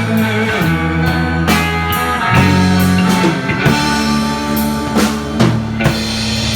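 Rock band playing an instrumental passage without vocals: electric guitar, held bass notes that change every second or so, and a drum kit with regular hits.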